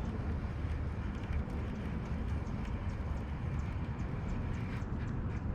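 Wind rumbling on the microphone, with faint light ticking several times a second.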